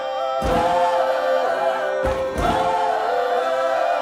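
A choir singing wordless, sustained chords in harmony, with a deep low thud under each chord change, about half a second in and again at about two seconds.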